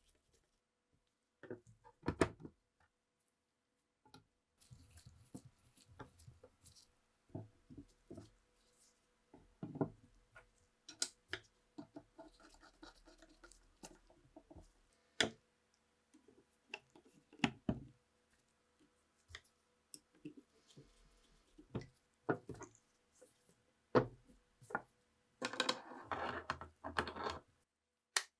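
Faint clicks, knocks and scrapes of a flat steel screwdriver working the screws of a TOZ-16 rifle's metal receiver and wooden stock. Near the end comes a denser run of scraping and rattling as the rifle is handled in its stock.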